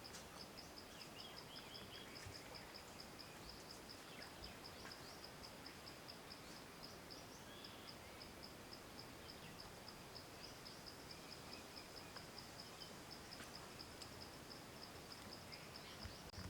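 Faint outdoor ambience dominated by an insect trilling in a fast, even, high-pitched pulse. A few short bird chirps and a steady hiss sit underneath.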